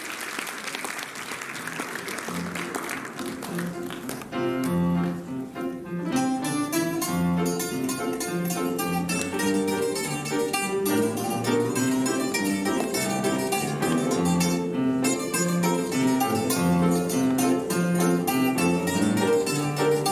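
Applause dies away, and about four seconds in an ensemble of bouzoukis and guitars with piano starts playing an instrumental piece with a regular plucked bass line.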